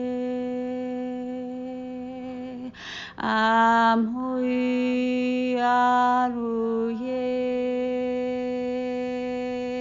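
A woman's voice toning long, steady held notes without words, the pitch staying nearly level. She breathes in once about three seconds in, and the vowel opens and brightens twice, around three and six seconds in.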